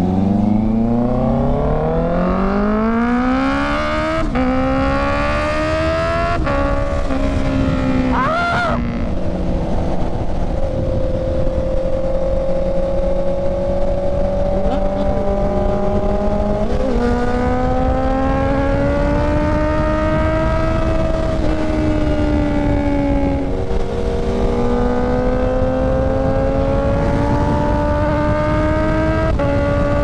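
Honda CB650R's inline-four engine revving hard through the gears. The pitch climbs in each gear and drops at quick upshifts about four and six seconds in. It then settles into a steady highway cruise, the pitch rising and falling slowly with the throttle, over wind rush.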